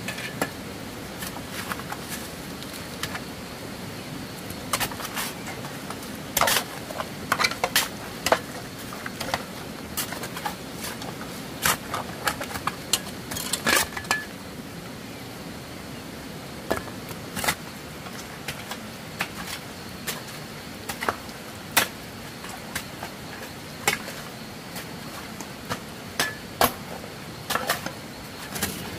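Irregular sharp knocks and clicks, some in quick clusters and some alone, over a steady low background hiss.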